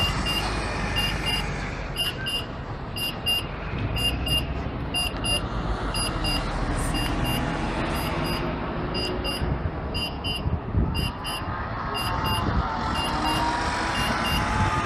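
City buses driving through a junction, engine and tyre noise with a drive whine that rises and falls as an articulated bus pulls past near the end. Over it, short electronic beeps in pairs repeat about once a second from the audible crossing signal on the traffic-light pole.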